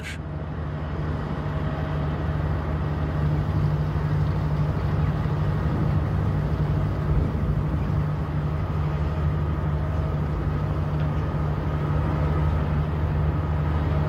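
A pusher tug's engine running steadily with a low drone as it pushes a pair of cargo barges.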